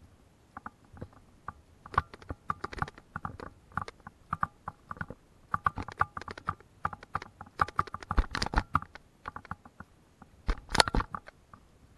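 Footsteps on a boardwalk of loose wooden planks: irregular clacking and knocking as the boards shift and bump underfoot, sparse at first, then dense from about two seconds in, loudest about a second before the end.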